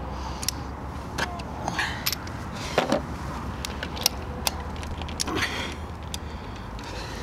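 Stronghold Atlas caravan wheel clamp being handled for unlocking: irregular sharp metallic clicks, keys jangling and a few short scrapes as the key is fitted to its lock.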